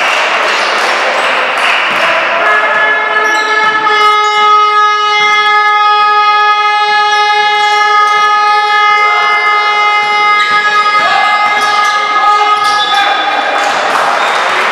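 A long, steady horn tone with many overtones, held for about ten seconds and shifting slightly near its end, over the noise of a basketball game in a gym hall.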